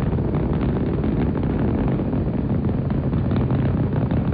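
Saturn V rocket's five F-1 first-stage engines at full thrust during ascent: a steady, deep rumble thick with fast crackling.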